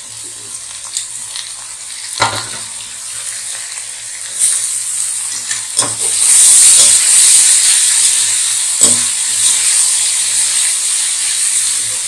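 Soaked flattened rice (poha) being stirred in a hot metal kadhai with a perforated metal spatula: a steady sizzle that grows louder about halfway through, with the spatula knocking against the pan a few times.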